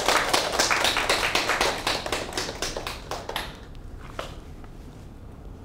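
A small group clapping by hand, dense at first, then thinning out about three seconds in, with a few stray claps near four seconds.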